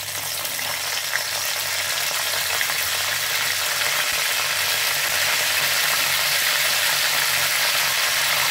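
Curry leaves and whole dried red chillies sizzling and crackling in hot oil in a metal kadhai as a tadka is tempered. It is a steady, dense sizzle that grows slightly louder.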